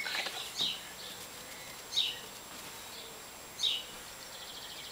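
A small bird calling: a short, high, downward-sliding chirp, repeated about every second and a half.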